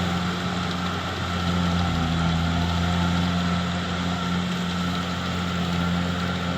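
A rice combine harvester running steadily in the field: a constant engine drone with a dense mechanical rush of the working machinery over it.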